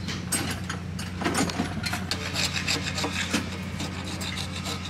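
Wood chisel pushed by hand, paring shavings from a wooden rudder in a run of short, irregular scraping strokes, over a steady low hum.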